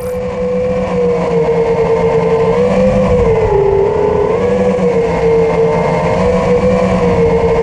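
FPV racing quadcopter's brushless motors and propellers whining steadily, the pitch wavering up and down with the throttle, with a rough rush of air underneath.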